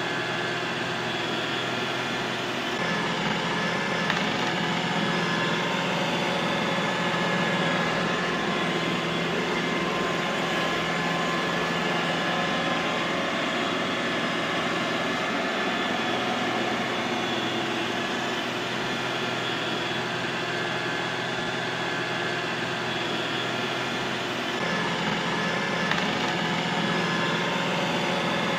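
Robot vacuum cleaner running steadily: an even whirr of its suction fan with a few constant motor whine tones on top. The low hum shifts slightly about three seconds in and again near the end.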